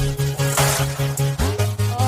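Electronic background music with a pulsing bass line and a drum beat.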